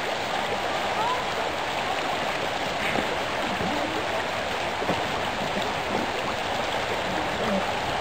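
Fast-flowing river current rushing steadily over a gravel bed.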